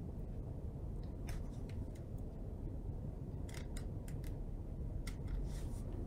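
Faces of a plastic Rubik's Cube being turned: scattered faint clicks over a low, steady room hum.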